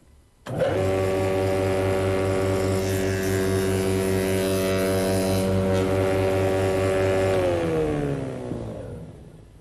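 Spindle moulder starting up about half a second in and running at speed with a steady whine, with a harsher hiss for a couple of seconds in the middle as a test piece is cut. Near the end it is switched off and runs down, its pitch falling as it fades.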